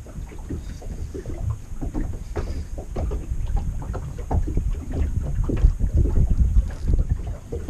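Wind buffeting the microphone over water lapping against a small boat's hull, with gusts strongest in the second half and easing near the end.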